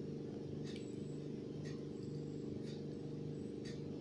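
Wooden spatula stirring sliced onions in an aluminium pressure cooker pan, a faint short scrape about once a second, over a steady low hum.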